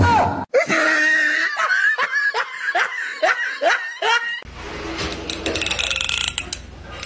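A burst of laughter, a run of about ten quick falling 'ha' sounds. About four and a half seconds in it gives way to a quieter, steady hiss.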